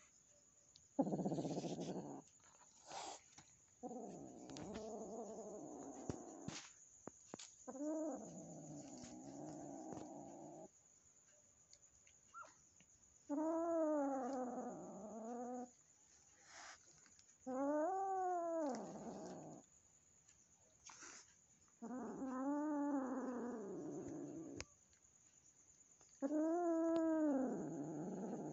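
A cat yowling: about seven long, drawn-out calls a few seconds apart, each rising and then falling in pitch.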